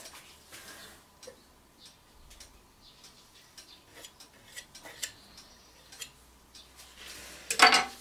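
Faint scattered light taps and scrapes of a small tool working paint along the edge of a stretched canvas, then a louder clatter near the end as something is knocked or set down.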